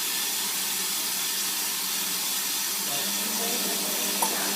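Whirlpool AWOD 5726 front-loading washing machine taking in water: a steady hiss of water rushing into the machine, with a low steady hum underneath.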